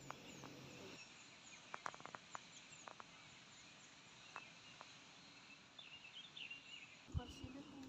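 Faint outdoor ambience with scattered short high chirps, typical of birds, and a few sharp ticks.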